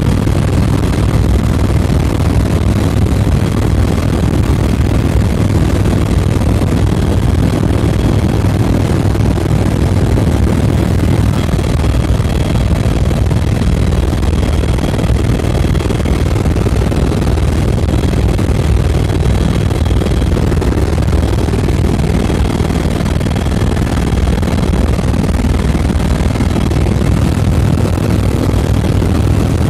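Helicopter engine and rotor running in flight, heard from inside the passenger cabin as a loud, steady low drone. A faint high whine comes and goes over it.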